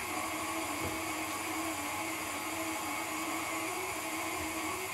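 Electric stand mixer running a meat-grinder attachment at a steady speed, grinding slices of raw top sirloin through the fine plate.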